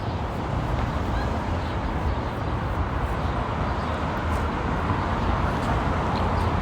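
Steady outdoor street background noise: an even hiss over a low rumble, with no single sound standing out.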